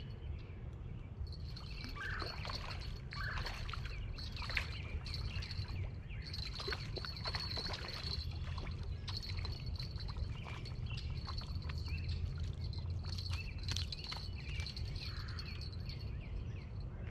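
A small hooked carp splashing at the surface as it is reeled in to the bank, heard as scattered splashes and clicks. Under it run a steady insect trill and a low rumble, and two short bird calls come about two and three seconds in.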